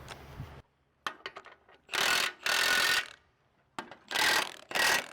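Ratchet wrench ratcheting in four short bursts on the mini excavator's bolts, after a few light metal clicks; the bolts are already tight and won't turn further.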